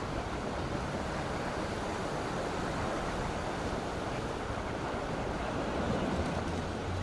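Steady seaside ambience of wind and water noise: an even hiss with no distinct events.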